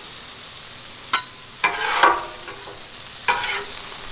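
Frozen onions and bell peppers sizzle steadily on a hot Blackstone flat-top griddle. A metal utensil scrapes and clanks against the steel griddle top four times: about a second in, twice around two seconds, and a little after three seconds.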